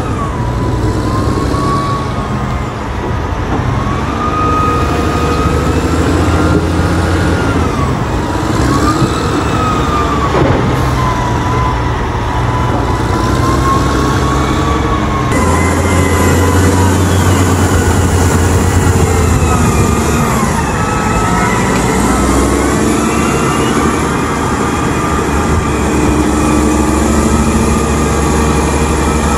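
Caterpillar 990 wheel loader's diesel engine running hard while it lifts and dumps its bucket, with a whine that rises and falls slowly in pitch. The sound changes abruptly about halfway through.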